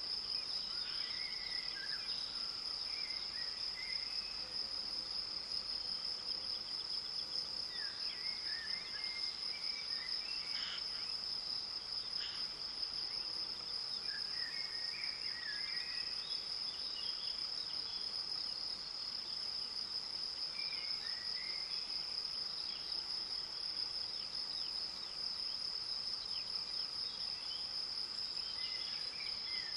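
Meadow insects stridulating in one continuous high, steady buzz, with short bird song phrases breaking in now and then.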